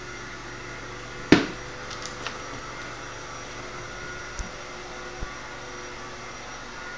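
One sharp knock about a second in, then a few faint taps, over a steady room hum.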